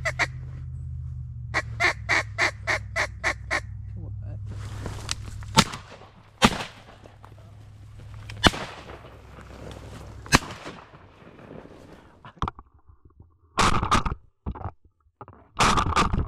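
A quick run of mallard-style quacks, then about four shotgun shots from two hunters spaced a second or two apart, followed by two short loud bursts near the end.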